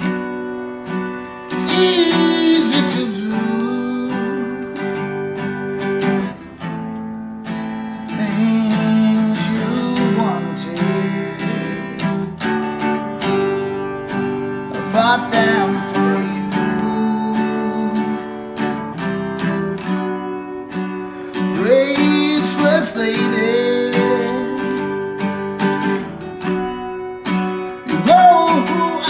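A man singing while strumming a Takamine acoustic guitar; his voice comes in phrases with stretches of guitar alone between them.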